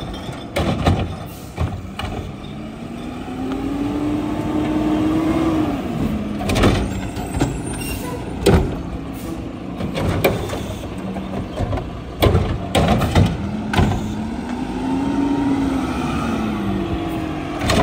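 Mack LR garbage truck engine revving up and easing back down twice while the truck works its Curotto-Can arm and moves between carts, with sharp metallic clanks and bangs and air-brake hisses in between.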